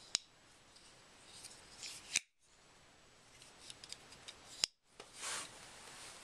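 Folding pocket knife being handled: a few sharp metallic clicks as the blade is snapped open or shut and the lock engages, spaced a couple of seconds apart, with light rubbing of the knife in the hand between them.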